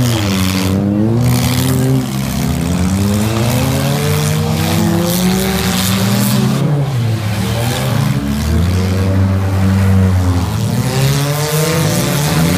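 Engines of several figure-8 race cars (old stock sedans) running hard around a dirt track, loud throughout. Their pitch rises and falls again and again as they rev up and ease off, with more than one engine heard at once.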